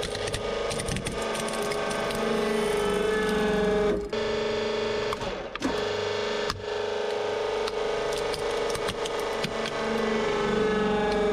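Hydraulic press pump whining steadily under load while plastic toys crack and snap under the ram, with sharp cracks near the start and again later on. The whine drops out briefly twice around the middle.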